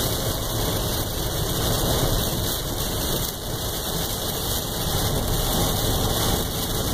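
Heavy rain drumming on a pickup truck's windshield and roof, heard from inside the cab, over the steady noise of the truck driving on a wet highway.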